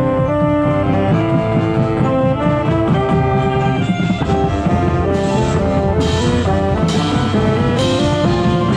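Marching band playing: brass and saxophones holding and moving through sustained chords over the drum line. In the second half four crashes from the drum line's cymbals land about once a second.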